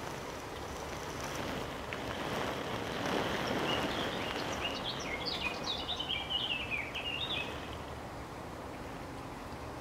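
A small songbird sings a run of quick, high, jumping chirps lasting about four seconds, starting a few seconds in, over steady outdoor background noise.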